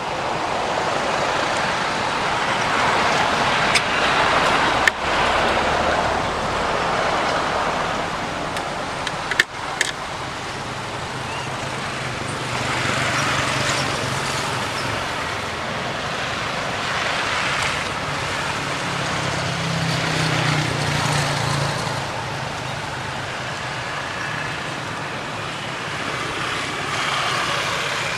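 Background road traffic going by, its noise swelling and fading every few seconds, with a few sharp clicks about 4, 5 and 9.5 seconds in.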